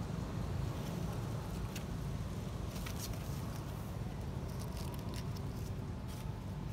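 Scattered light crackles and clicks of dry leaf litter as monkeys move about on it, over a steady low rumble.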